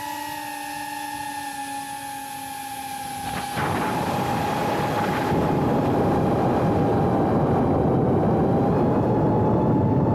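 Small FPV drone's brushless motors whining at a steady high pitch, recorded by the camera on board. About three and a half seconds in, a loud rush of air noise comes in under the whine and stays.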